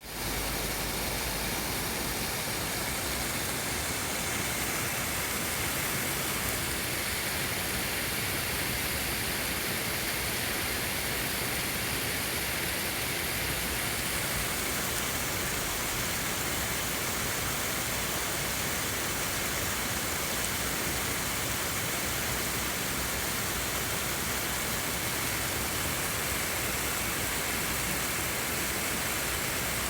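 Waterfall running steadily: an even rush of falling water.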